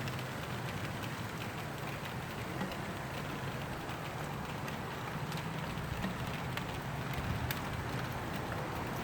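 Rain falling, a steady hiss with scattered drop ticks, over a low steady hum.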